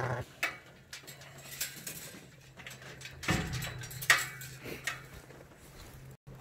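Twin lambs suckling from a Katahdin ewe on a straw bed: rustling in the hay and scattered short knocks, over a steady low hum, with a louder burst of noise about three seconds in.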